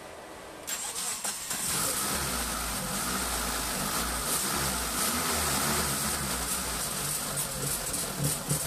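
Turbocharged Mitsubishi 4G93T engine cranked on the starter about a second in, catching a second later and then idling. It is running on freshly fitted 800cc injectors with the ECU not yet reflashed. Near the end the running turns irregular and choppy.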